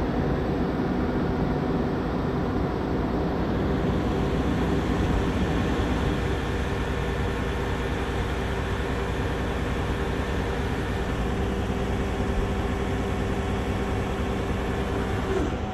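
Heavy rotator wrecker's diesel engine and hydraulic winch running steadily as the winch pulls on a stuck log truck, a constant hum with a slight drop in pitch near the end.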